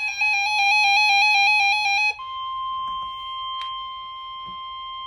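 Emergency Alert System broadcast tones. For about the first two seconds there is a rapid warbling, buzzy data burst, the digital alert header. It switches abruptly to a single steady, high alert tone that holds, with a brief click partway through.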